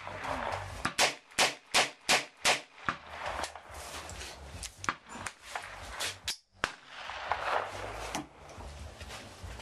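Small revolver fired five times in quick succession, a sharp crack about every 0.4 s, followed by fainter clicks and knocks as the gun is handled.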